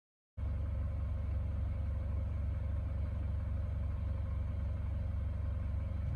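Car engine idling steadily, a low, even hum that starts abruptly about half a second in.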